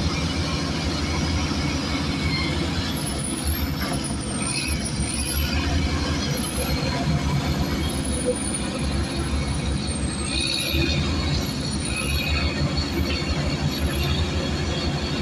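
Heavy diesel earthmoving machinery at work: the engines of crawler bulldozers and excavators running under load in a steady rumble, with short metallic squeaks now and then from steel tracks and moving parts.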